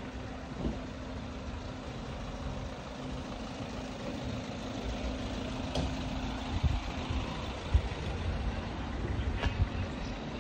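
An engine running steadily with a low hum that drops out about seven seconds in, over a low rumble.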